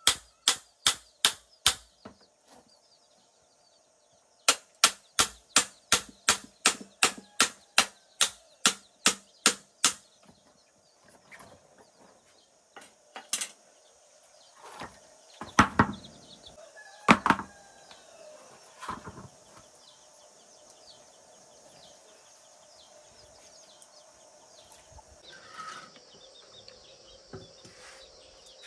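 Fast, even chopping strokes, about three to four a second, in two runs separated by a short pause and stopping about ten seconds in, followed by a few scattered knocks.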